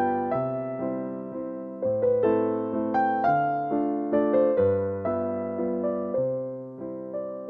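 Background piano music: gentle notes and chords struck about twice a second, each fading before the next.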